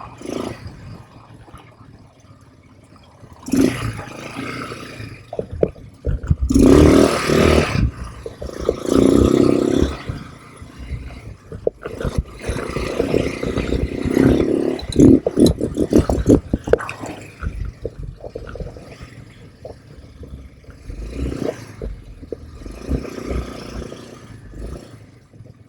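ATV being ridden over a rough trail: its engine runs amid an uneven rush of noise that surges loudly several times, with knocks and rattles from the bumpy ground.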